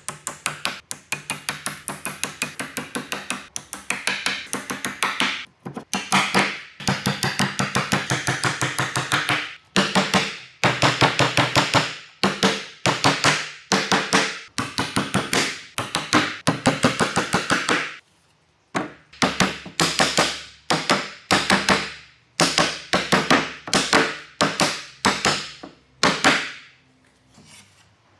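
Quick runs of light hammer taps on wood, several blows a second in bursts of a second or two, driving loose tenons into their mortises and tapping the frame joints together.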